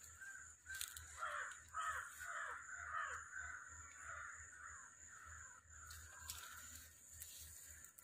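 Crows cawing, a quick run of harsh caws about a second in, then fainter calls trailing off.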